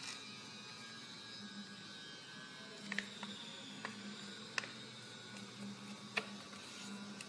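A sheet of paper being folded and pressed flat on a wooden table: about five sharp crackles and taps between three and six seconds in, over a faint low hum.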